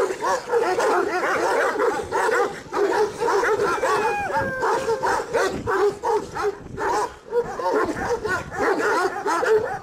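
Kangal shepherd dog barking over and over in quick succession. About four seconds in there is a single falling whine.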